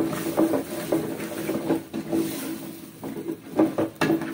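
Wooden spoon stirring cubed potatoes in a stainless-steel pot, scraping and knocking against the pot about two or three times a second.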